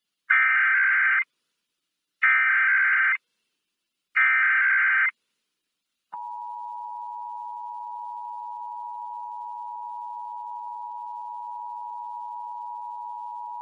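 Emergency Alert System SAME header for a Required Monthly Test: three identical bursts of buzzy digital data, about two seconds apart. About six seconds in, the quieter EAS attention signal starts, two steady tones at 853 and 960 Hz sounding together.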